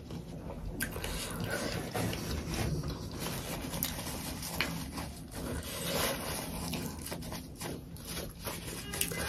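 Paper tissue rustling and crinkling as it is wiped across the mouth and folded, a run of small crackles, with soft mouth noises.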